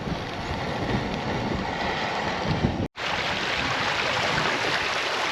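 Wind buffeting the microphone in a steady rumbling rush, strong enough to be taking the heat away from the cooking stove. A split-second dropout in the sound about three seconds in.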